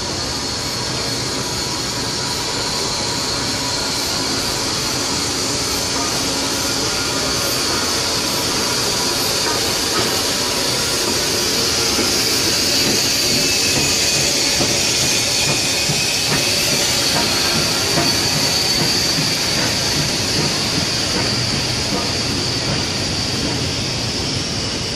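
Queensland Railways BB18¼ class steam locomotive 1089 arriving at a station platform, with a steady high hiss of steam as it passes. Its tender and train of carriages follow, rolling past on the rails with a continuous rumble.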